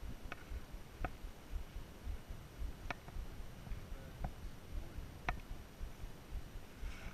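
Quiet outdoor ambience: low, uneven wind buffeting on the microphone, with a few faint sharp ticks scattered through it.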